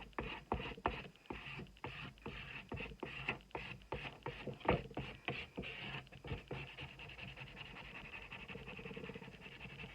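Paper and cardboard being handled: irregular light taps and knocks, the loudest about halfway through, then a softer steady rustling over the last few seconds.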